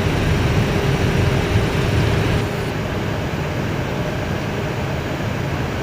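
Cockpit noise of an Airbus A320 slowing on the runway after touchdown: a steady rumble of engines and wheels. A level hum stops and the noise eases a little about halfway through.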